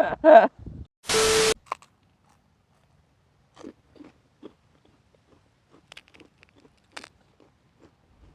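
A loud half-second burst of noise about a second in, followed by soft, scattered crunching and chewing of food close to the microphone.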